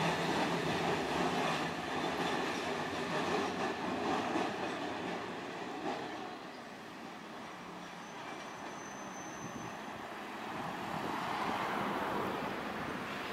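Tosaden streetcar running along street-embedded rails and drawing away, its wheel rumble fading over the first six seconds. Road traffic goes with it, and a small truck's engine and tyres swell as it approaches near the end.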